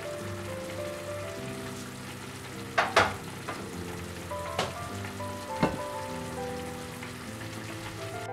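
Vegetable and bacon broth simmering in a frying pan on a gas burner, a steady bubbling sizzle with a few sharp pops in the middle, the loudest about three seconds in. The stew base is being brought to a boil before the milk goes in. Soft background music plays over it.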